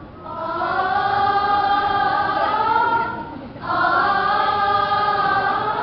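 Children's choir singing long held notes without words, in two sustained phrases with a short break about three seconds in.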